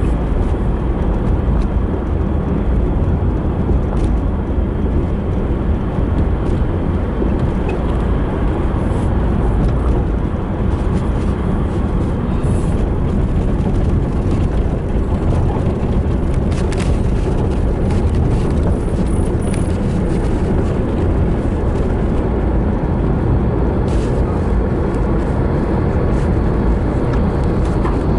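Car driving steadily, with the engine and road noise heard from inside the cabin as an even, low rumble, with a few faint ticks and knocks.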